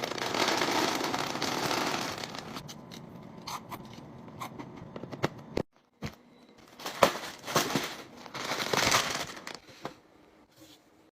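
Packaging being handled: crinkling and rustling with scattered clicks and light knocks. A noisy rush fades out over the first two seconds or so, the sound cuts out briefly about six seconds in, and then come bursts of crinkling.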